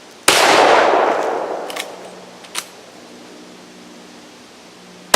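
A Rossi Ranch Hand .44 Magnum lever-action fires once, a loud shot followed by a long rolling echo. A couple of metallic clicks follow as the lever is worked, and the next shot goes off right at the end.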